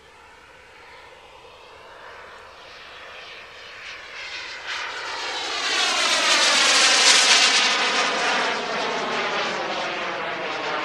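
Radio-controlled model Hawker Hunter jet making a fly-past. Its jet whoosh grows steadily louder to a peak about seven seconds in, with a sweeping, fluttering quality as it passes, then eases off as it flies away.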